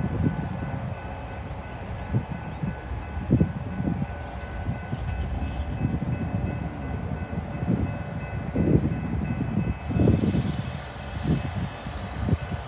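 Diesel locomotive of an approaching BNSF freight train running, a steady low rumble with faint steady whine tones above it and uneven low surges that come and go. The hiss brightens suddenly about ten seconds in.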